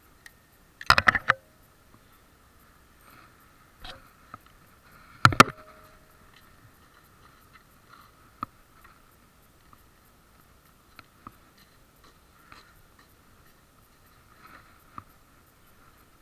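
Handling noise rubbing and knocking against a chest-mounted action camera: two loud crackling bursts, about a second in and about five seconds in, with scattered faint ticks between, over a faint steady high whine.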